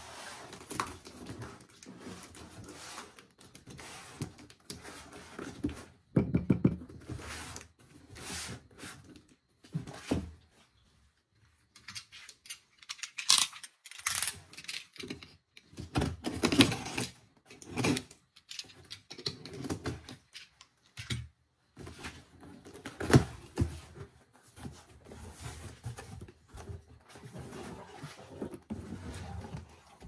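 Small plastic fan humidifier and its packaging being handled: irregular clicks, knocks and rustles, with brief pauses.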